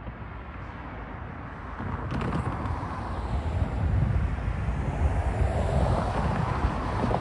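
Road traffic passing close by: tyre and engine noise of a pickup truck and cars driving over the crossing, swelling from about two seconds in and loudest near the end.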